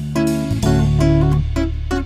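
Instrumental background music with plucked notes over sustained bass notes and a regular beat.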